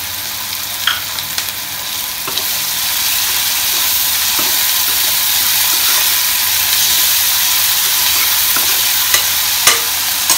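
Chopped onions sizzling in hot oil in a steel pan as a slotted steel spoon stirs them, the steady hiss broken by a few sharp clicks of spoon on pan. The sizzle grows a little louder about two seconds in.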